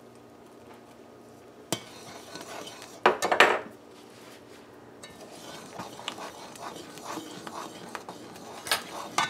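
Metal spoon stirring and scraping in a metal karahi of boiling coconut fudge mixture, with small clinks against the pot. A sharp click comes just under two seconds in, and the loudest clatter about three seconds in.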